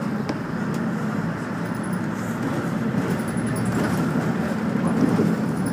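Steady engine and road noise inside a city route bus while it is driving.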